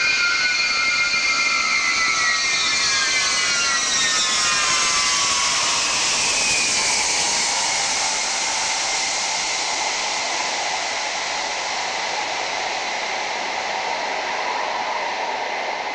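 Ilyushin Il-76 jet's four turbofan engines passing low on landing: a whine that falls in pitch over the first six seconds, then a steady jet roar as it rolls out down the runway, slowly fading.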